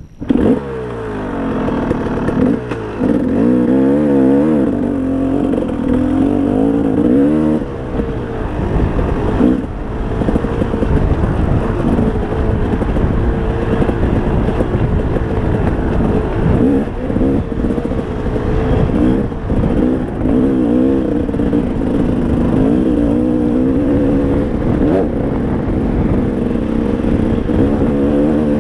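KTM dirt bike engine under way on a dirt trail. It cuts in suddenly, its pitch rising and falling with the throttle over the first eight seconds or so, then running more steadily with smaller rises and falls.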